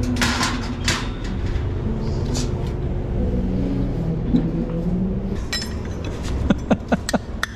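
Stainless-steel drip-tray grates of a La Marzocco GB5 S espresso machine being handled and set in place, with a metal clatter near the start and a quick run of sharp metallic clicks and taps near the end, over a steady low hum.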